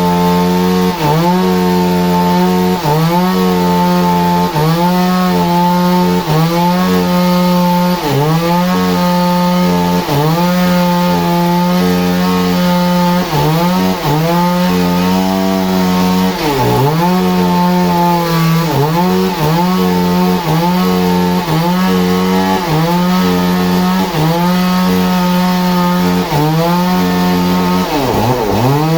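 Engine-driven saw cutting through wood at high revs, its pitch dipping briefly under load and recovering about once a second or so, with deeper drops about halfway through and near the end.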